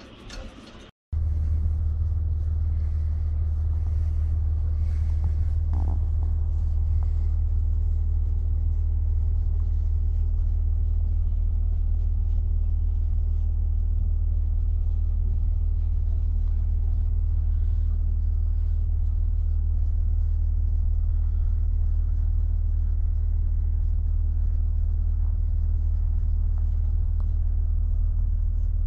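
A steady, unbroken low rumble that starts abruptly about a second in after a brief silence, with a few faint clicks over it.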